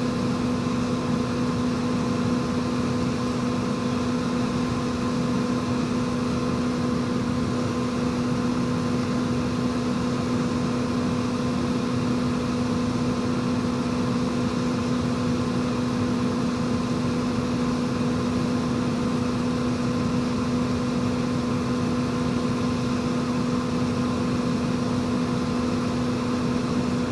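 John Deere combine running steadily while its unloading auger empties wheat from the grain tank: a constant machine hum with one held tone.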